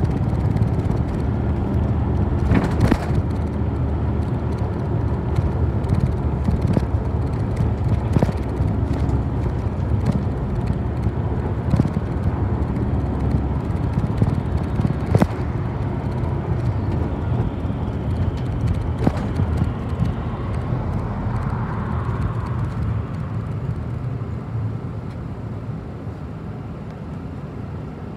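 City bus engine and road rumble heard inside the passenger cabin while driving, with a few sharp rattles or knocks. The noise eases off over the last few seconds as the bus slows almost to a stop.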